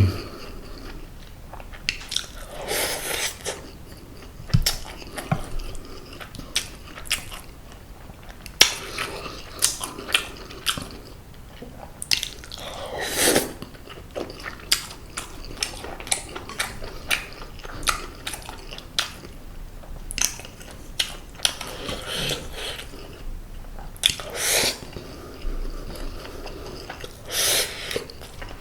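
Close-miked chewing of boneless seasoned semi-dried pollock (kodari): steady wet mouth clicks and smacks, with a few longer wet sucking sounds now and then.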